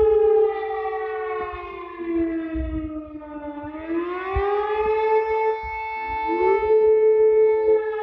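Romanian civil defence siren wailing. Its pitched tone, with many overtones, falls slowly, rises again about four seconds in, holds, and rises once more near the end, over a low rumbling noise.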